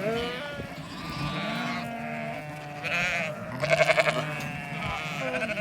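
A flock of sheep and lambs bleating, several calls overlapping, with one loud quavering bleat about four seconds in.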